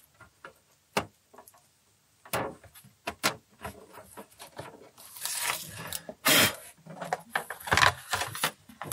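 Acrylic display-box panels being handled and fitted together: scattered clicks and knocks of hard plastic on plastic. A denser rustling stretch comes about five seconds in.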